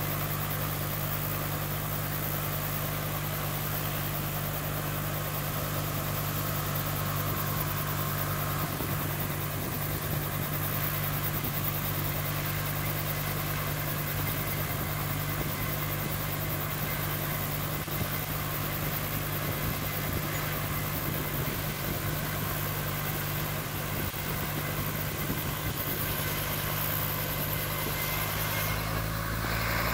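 Small helicopter's engine and rotor idling steadily on the ground, beginning to rise in level right at the end as it starts to spool up.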